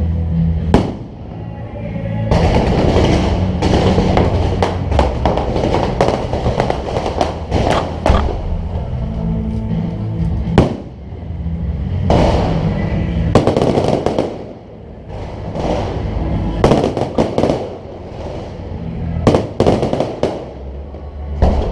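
A fireworks display: repeated sharp bangs and long spells of dense crackling, with music playing underneath.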